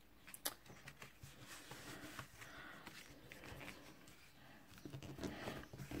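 Faint rustling and light taps of white cardstock being handled, folded open and pressed flat onto a cutting mat, with one sharper click about half a second in.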